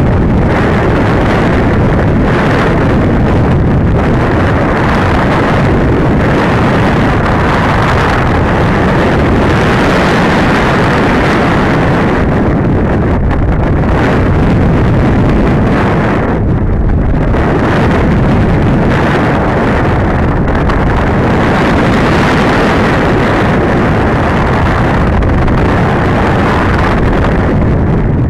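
Steady, loud rush of air buffeting the onboard camera's microphone as a Masterline Preacherman RC glider flies, easing briefly about sixteen seconds in.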